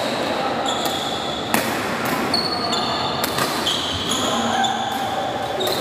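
Badminton rally: a few sharp smacks of rackets hitting the shuttlecock, about a second or more apart, with short high squeaks of court shoes on the floor between them.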